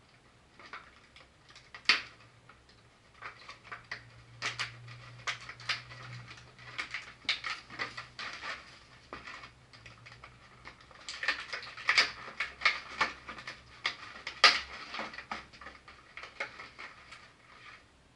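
Plastic toy packaging crinkling and clicking in irregular flurries as a toy weapon accessory is worked free of it. The sharpest clicks come about two seconds in, about twelve seconds in and near fifteen seconds.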